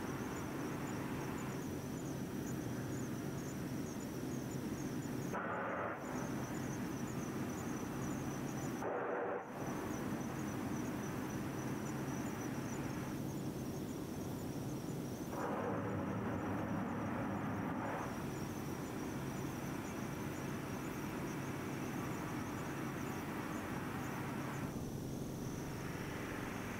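Distant steady rushing hiss of the Starship SN8 prototype venting gas during pressure testing, swelling into louder bursts of hiss a few times. Insects chirp steadily about four times a second.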